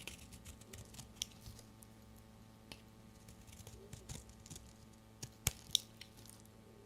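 A blade and bar soap making a few scattered, light clicks and crisp crunches, sparser than during full cuts, over a faint steady hum.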